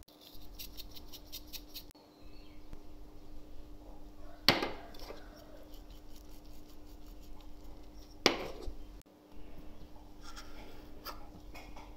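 A stainless-steel shaker shaken over rolled paratha dough, a quick rattle of taps for about two seconds, followed later by two sharp, ringing clinks of kitchenware set down on the counter. Near the end a knife scrapes on the wooden board, over a steady low hum.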